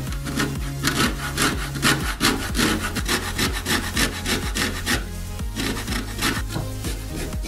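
A lime rubbed over the fine side of a stainless-steel box grater to zest it: quick rasping strokes, about three to four a second, with a short break about five seconds in. Background music runs underneath.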